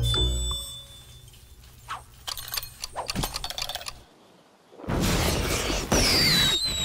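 Cartoon sound effects: a run of sharp clicks and cracks, a short pause, then a loud noisy rush with a high whistle gliding downward near the end.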